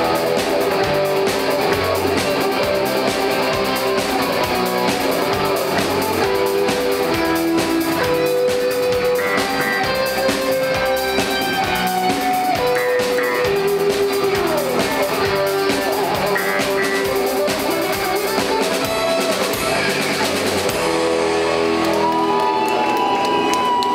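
Live rock band playing an instrumental passage: guitars over a drum kit, with sustained notes. Near the end, held guitar notes slide up and down in pitch.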